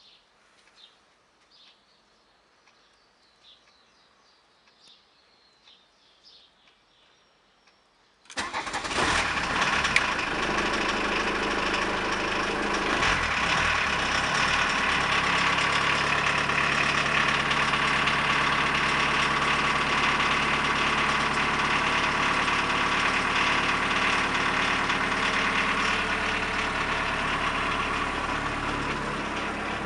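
1983 VW Golf Mk1 1.6-litre diesel engine cold-starting, heard from inside the cabin: near quiet with faint chirps for about eight seconds, then the engine starts abruptly. Its pitch shifts for a few seconds before it settles into a steady idle.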